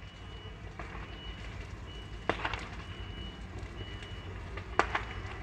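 Fire engine arriving, its engine rumbling low and steady, with a high thin beeping tone sounding on and off. Two sharp knocks stand out, one about two seconds in and one near the end.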